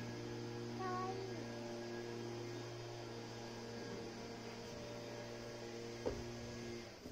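A steady low electrical-sounding hum with a few steady higher tones over it. A brief high, gliding voice-like sound comes about a second in, and a single sharp knock about six seconds in.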